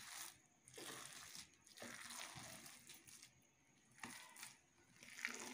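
Faint squishing of a spoon stirring and mashing soft-cooked rice and moong dal in an aluminium pressure cooker, in a few short strokes with quiet gaps between.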